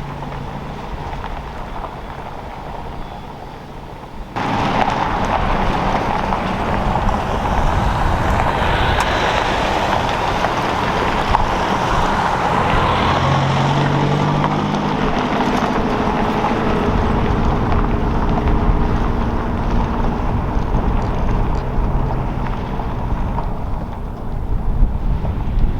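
A 4x4 vehicle driving, its engine running under a steady rush of road and wind noise. The sound jumps suddenly louder about four seconds in, and the engine's pitch shifts up and down after that.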